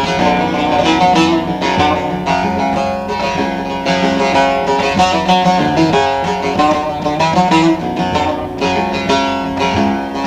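Bağlama (Turkish long-necked lute) playing an instrumental passage of a Turkish folk song: a fast plucked melody with no singing.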